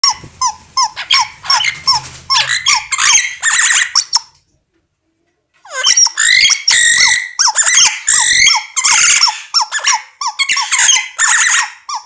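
Squeaky toy squeaked over and over while a red-lored Amazon parrot squawks back at it, quick high squeaks two or three a second. There is a break of about a second just past four seconds in, then the squeaking resumes louder and denser.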